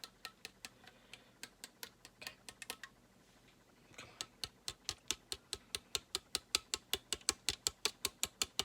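Rapid sharp taps or clicks, about five a second, stopping for about a second three seconds in, then resuming steadier and louder.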